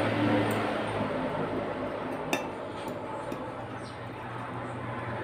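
Metal fork clinking and scraping against a plate while stirring a portion of sauced instant noodles, with one sharper clink a little past two seconds in. A steady low hum runs underneath.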